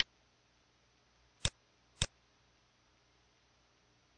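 Computer mouse button clicking: one sharp click at the start, then two more about half a second apart around the middle, with near silence between.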